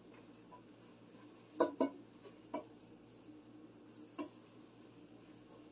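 Four light knocks of an enamelled Dutch oven being handled at a stainless steel sink. Two come close together about a second and a half in, one about two and a half seconds in, and one about four seconds in.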